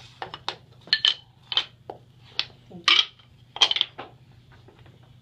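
Wooden printing furniture blocks clacking against one another and the press bed as they are fitted in around the type: a string of sharp knocks, the loudest about three seconds in.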